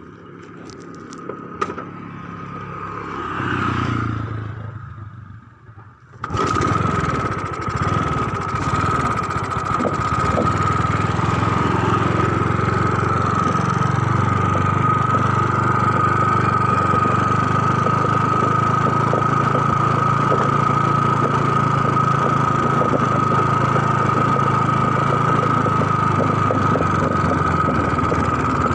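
An engine starts about six seconds in and then runs steadily: a low hum with a steady high whine over it.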